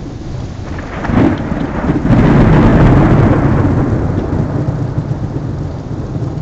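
Thunder from a nearby lightning strike: a sharp crack about a second in, then a loud, low rumble that fades away over a few seconds, over steady heavy rain.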